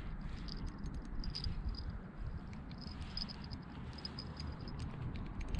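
Faint, irregular high clicking of a fishing reel being wound in while a hooked trout is played, over a low rumble.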